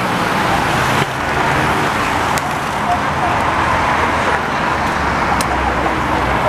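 Steady road traffic noise, with the indistinct voices of people walking past.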